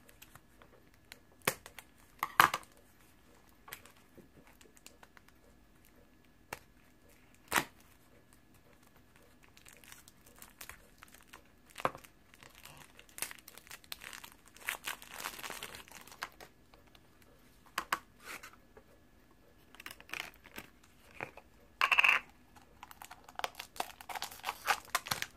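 Plastic toy packaging being cut, torn open and crinkled by hand as a Shopkins Chef Club jar and its blind bags are unwrapped. First come a few separate sharp clicks, then a longer stretch of crinkling, and near the end a louder tearing burst followed by more crinkling.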